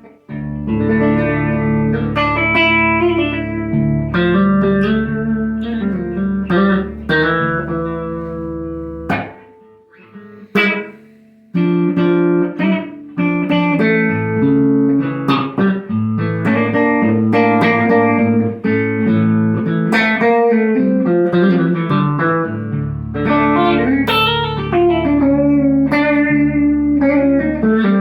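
Electric guitar, a Telecaster, played through a Krinard-modified Bell & Howell Filmosound valve amplifier with EL84 output valves: a run of chords and single notes, with a brief lull about nine seconds in broken by a couple of short muted strums before the playing picks up again.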